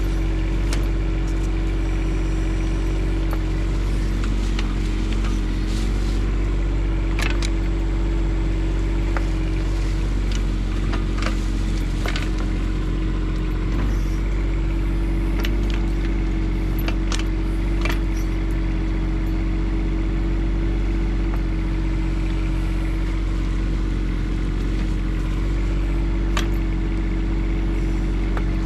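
A Bobcat E10 mini excavator's three-cylinder diesel runs steadily under digging load. Its bucket gives several sharp knocks and clanks as it cuts into the dirt and roots.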